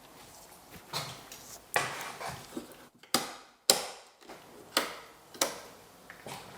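Footsteps on a wooden floor: a series of sharp, separate steps spaced a little under a second apart.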